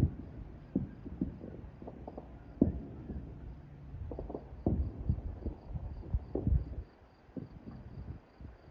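Distant fireworks going off all over a city: a scattered run of low booms and pops at irregular intervals, some overlapping, with a few louder booms near the start and again in the middle.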